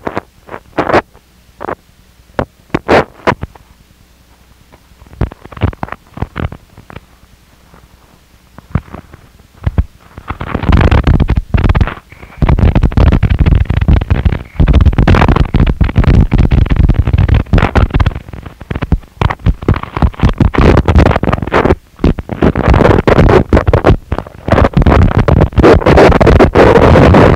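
Harsh noise wall music. For about the first ten seconds there are scattered, sudden crackling bursts of distortion, then about ten seconds in it turns into a dense, loud, unbroken wall of distorted noise with brief dropouts.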